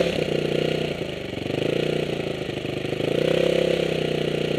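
Off-road machine's engine with a full Yoshimura exhaust, revved from idle and held at raised revs. The revs ease off briefly about a second in and rise again around three seconds in. The sound-level test reads 99 dB on this rev, over the 93 dB limit: too loud.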